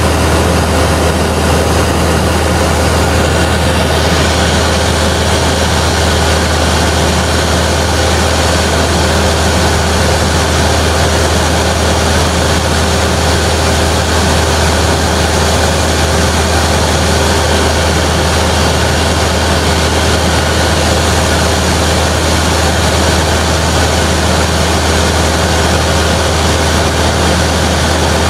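Cessna 172's piston engine and propeller running steadily in flight, heard from inside the cabin: a loud, deep, unbroken drone with an even hiss over it.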